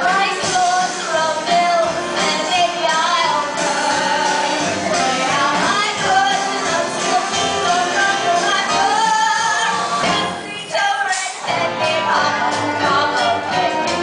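Live big band playing a swing number with singing, with a brief lull about ten seconds in.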